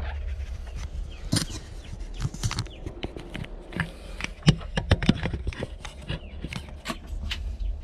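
Irregular knocks, taps and scuffs of a person climbing down into a boat's engine compartment, shoes and hands bumping against the engine and hull, with a sharp knock about four and a half seconds in. Under it runs a steady low rumble of handling noise from the hand-held camera.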